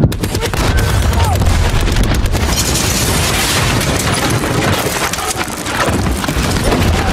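Movie sound effects of a tank shell blasting through a building's wall: a heavy boom at the start, then a long, dense rumble of smoke and debris crashing down.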